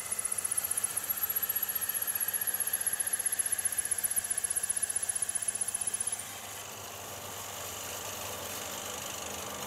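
Wood lathe spinning a long, thin hard-maple spindle while a taper rounder shaves a taper on it: a rapid, even chattering cut with a thin high whine. The cutting stops about six seconds in, leaving the lathe running more quietly.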